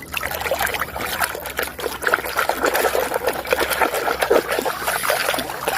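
Water trickling and splashing as a muddy toy vehicle is washed clean, an irregular, crackly patter.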